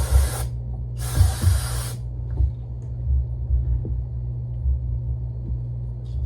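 Aerosol cleaner sprayed onto a bare camshaft to clean it: a hissing spray that stops about half a second in, then a second spray lasting about a second, over a steady low hum.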